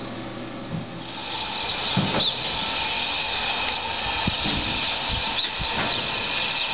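Strong gusting wind, a rushing noise that grows louder about a second in, with several short low thumps.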